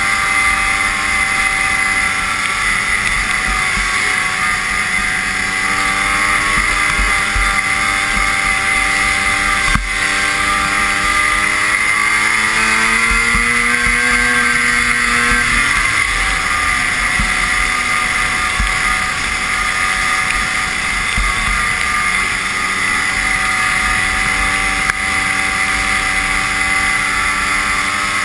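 Vintage snowmobile's two-stroke engine running at trail speed, a steady buzzing drone; around the middle it eases off for a couple of seconds and then speeds up again.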